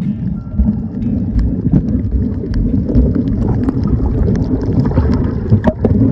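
Muffled underwater sound picked up by a camera held underwater while snorkeling: a dense low churning rumble of moving water with scattered sharp clicks and crackles throughout.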